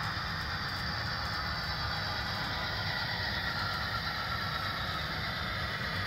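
HO scale Santa Fe FP45 model diesel locomotive hauling passenger cars along the track: a steady mechanical running sound with a low hum, with no breaks or knocks.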